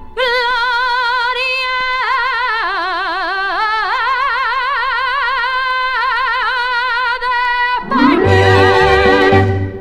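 Female copla singer holds a long final note with a wide vibrato over the orchestra. About eight seconds in, the orchestra takes over with loud closing chords and drum beats.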